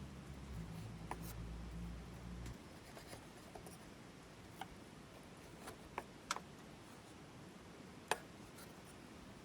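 A handful of sharp, isolated clicks at irregular intervals over a faint low hum that stops about two and a half seconds in.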